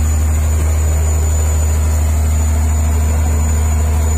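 A fishing boat's engine running steadily, a deep, even drone heard from inside the boat's cabin.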